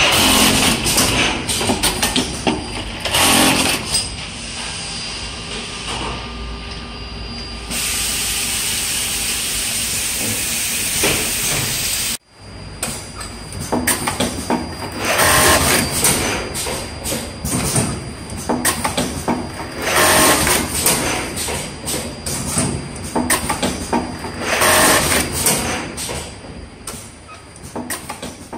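Brother AML-430H automatic multiple-label sewing machine at work: clattering from its label-feeding unit, with a steady hiss for about four seconds. Later its sewing head runs in three short loud bursts about four and a half seconds apart, one for each label sewn onto the panel.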